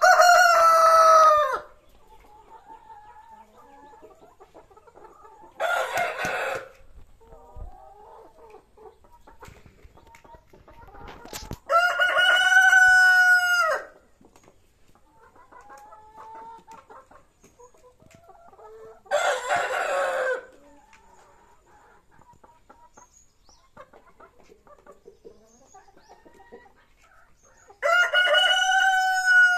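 Rhode Island Red roosters crowing: three loud, long crows about a quarter of a minute apart (at the start, about twelve seconds in, and near the end), with two shorter, harsher calls in between. Hens cluck softly between the calls.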